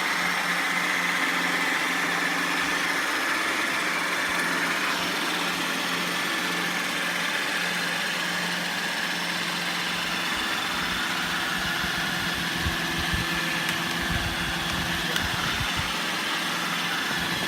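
Roomba robot vacuum running, its motor and brushes giving a steady whirring hum with a high whine, while it has trouble docking. A few faint low knocks come in the second half.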